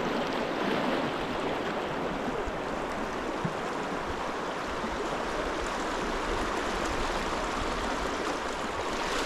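Shallow, rocky trout stream rushing and babbling steadily.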